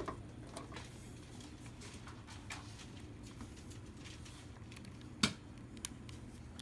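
A few light clicks and one sharper metallic click about five seconds in, from a light fixture's sheet-metal wireway cover (belly pan) being folded back up into place, over a faint low hum.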